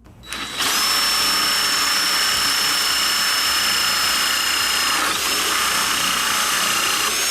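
Cordless drill running steadily under load with a high whine. It starts about half a second in, eases briefly about five seconds in, then runs on.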